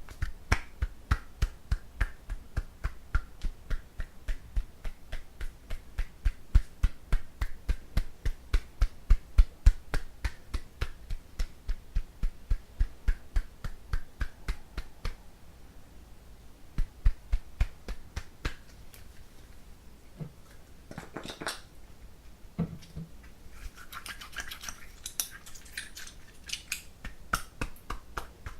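Fingers tapping a silicone ear model in a steady rhythm, about three taps a second, each with a soft thud and a click. This is the finishing massage of an ear-cleaning routine. Near the end the tapping gives way to a few seconds of rubbing and rustling on the ear.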